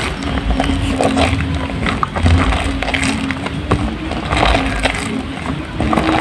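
Soaked, mushy soap squeezed and crushed by hand, making many short crackling squelches, over a steady low hum.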